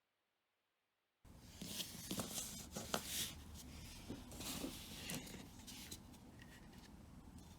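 Hands handling and fitting small model-kit parts: light clicks, taps and rustling, starting after about a second of silence.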